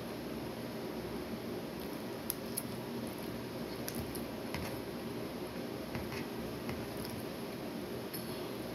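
Close-up eating sounds: chewing, with scattered light clicks and taps of a metal fork on a plate over a steady background hiss.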